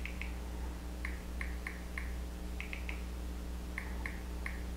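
Smartphone touch-keyboard key sounds: about a dozen short, high blips in irregular runs as keys are tapped, over a steady low hum.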